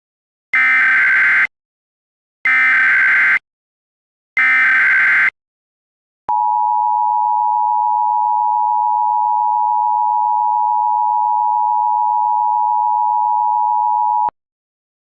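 Emergency Alert System broadcast signal: three short, harsh bursts of SAME header data tones, each about a second long, then the two-tone EAS attention signal held steady for about eight seconds before it cuts off.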